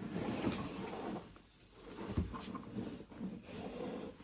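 Rustling of a quilted fabric mat being smoothed and tugged by hand, with a single light knock about two seconds in.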